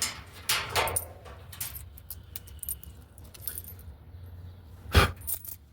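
Loose coins clinking and jingling as they are handled and gathered from inside a dryer cabinet, with a single sharp knock about five seconds in.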